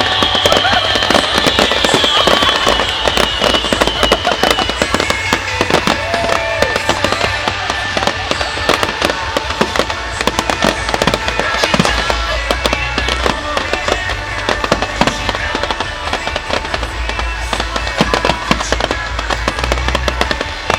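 Fireworks display with dense, continuous crackling and banging. A whistling firework falls in pitch in the first few seconds, and music plays underneath.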